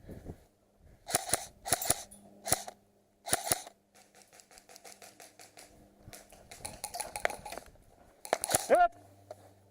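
Airsoft guns firing: a run of sharp shots, mostly in pairs, over the first few seconds, fainter rapid clicking after that, and another loud burst near the end.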